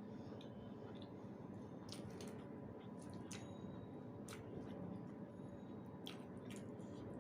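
Close-up chewing of a mouthful of rice and dal curry, wet and squishy, with a handful of sharp mouth clicks scattered through it.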